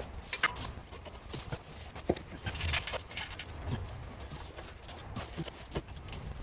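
Irregular metal knocks and clanks of hand tools and exhaust hardware during an exhaust swap under a pickup, with a short scraping sound about two and a half seconds in.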